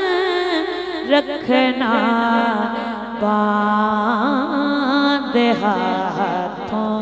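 A male naat reciter singing a line of an Urdu naat into a microphone, drawing out the word 'rakhna' in long, wavering melismatic runs.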